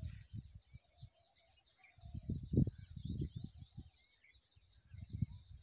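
Small birds chirping steadily in the background, with low rumbles on the microphone in clusters about two seconds in and again near the end.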